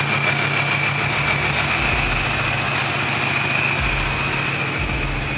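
Ford Mustang's supercharged Coyote 5.0 V8 idling steadily, with a constant high whine over the idle.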